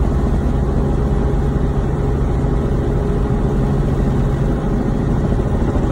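Steady drone of a Robinson helicopter's engine and rotor in level flight, heard from inside the cockpit.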